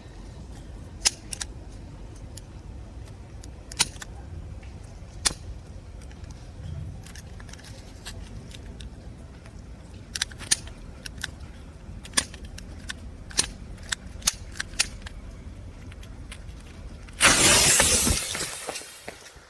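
Twenty Korsar 2 firecrackers going off together: a sudden dense burst of bangs about a second long that dies away, after many seconds of scattered sharp clicks.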